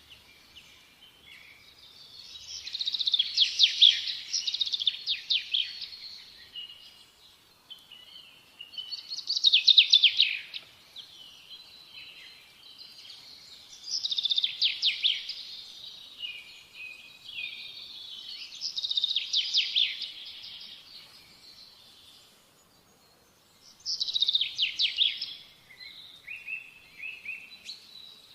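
A songbird singing repeated phrases of rapid trills and chirps, a new phrase about every five seconds with short pauses between them.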